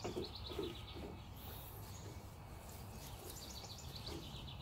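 Faint bird calls: two quick trills of high, rapidly repeated chirps, one at the start and another about three seconds in, over a low steady background rumble.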